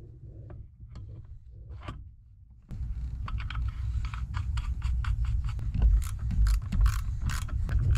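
Gloved hand working the cap of a plastic master cylinder reservoir, making a quick run of small clicks and scrapes. About three seconds in, a steady low rumble starts abruptly underneath.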